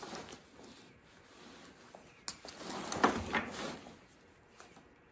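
Heavy cloth chainsaw chaps rustling as they are handled on a wooden workbench, with sharp clicks from their plastic strap buckles, loudest about three seconds in.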